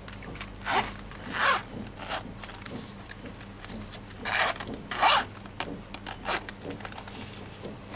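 Zipper on a lockpick set's case being pulled in short strokes: two quick pulls, then two more about three and a half seconds later.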